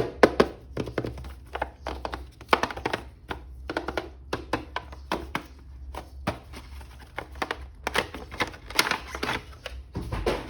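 Plastic toy action figure and its packaging being handled and unpacked: a quick, irregular run of clicks, taps and knocks, over a steady low hum.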